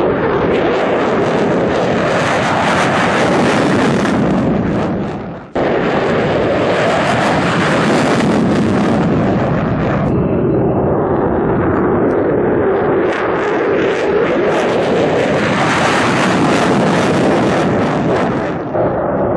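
Military fighter jets taking off at full power, including a twin-engine F-15: a loud, steady jet engine roar with wind buffeting the microphone. The sound cuts off abruptly and starts again about five seconds in, and dips briefly near the end.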